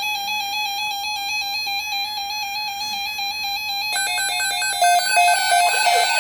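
Electronic weather-alert tones: a rapidly pulsing, ringtone-like alarm tone. About four seconds in, a second, louder alert alarm joins it, beeping and then sweeping down over and over like a siren.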